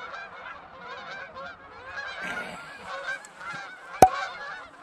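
A flock of geese honking overhead, many overlapping calls at once. About four seconds in there is a single sharp, loud knock.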